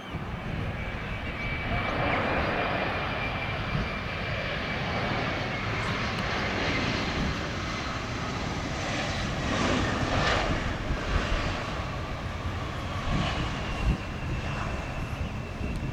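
Embraer E175 airliner's twin turbofan engines running on approach and passing by: a steady jet roar with a thin high whine that slowly drops in pitch.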